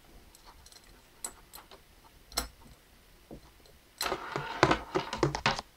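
Handling noise from fumbling with a power cable and plug: a few scattered clicks, then about four seconds in a dense clatter of rattling knocks as the plug is dropped.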